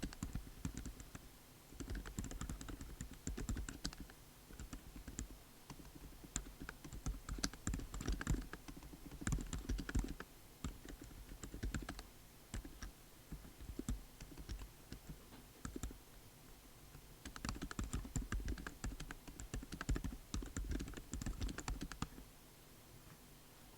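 Typing on a Yamada53AN mechanical keyboard fitted with Outemu Silent Ocean switches and MelGeek MDA Dawn keycaps, in runs of rapid keystrokes broken by short lighter pauses. The typing stops about a second before the end.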